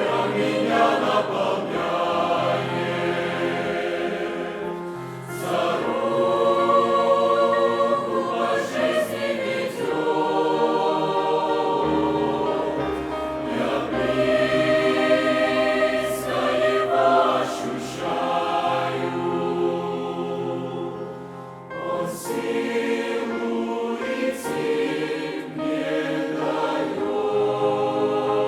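Youth choir singing a Russian-language hymn in long held phrases, with brief breaks between phrases about five seconds in and again past twenty seconds.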